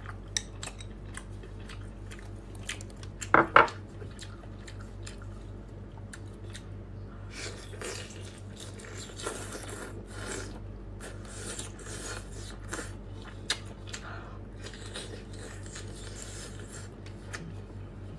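Close-miked eating sounds: wet mouth clicks, chewing and slurping of seafood and thin noodles, with two loud sharp sounds a little over three seconds in.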